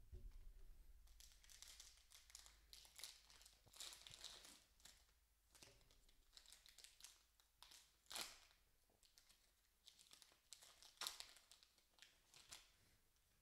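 Foil trading-card pack wrapper being torn open and crinkled by hand, quiet irregular crackles and rustles with a few sharper crackles near the middle and later on.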